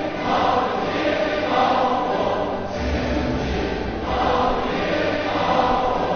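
Background music with a choir singing in long, swelling phrases. A low bass note comes in about three seconds in.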